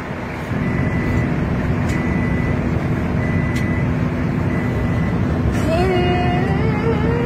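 Steady low rumble of a bus's engine and road noise heard inside the cabin, growing louder about half a second in. Near the end a boy's voice begins a melodic Quran recitation through the bus's microphone, rising and falling in long held notes.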